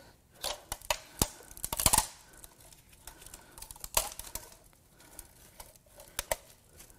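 Scattered sharp clicks and light metal clatter of engine parts being handled, with a quick run of scraping clicks about two seconds in.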